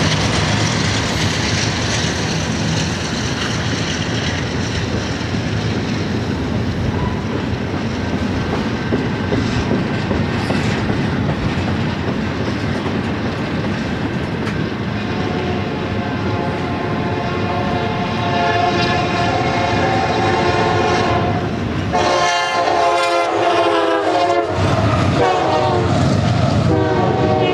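BNSF double-stack intermodal train rolling past close by, a steady rumble and clatter of wheels over the rail joints. From about halfway through, a train horn sounds as a sustained multi-note chord over the rolling noise.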